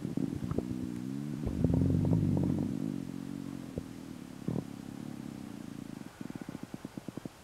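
Stomach growling: a long gurgling rumble with a wavering pitched tone, loudest about two seconds in, that breaks near the end into a quick run of small bubbling pops. The uploader puts these stomach sounds down to a stomach ulcer.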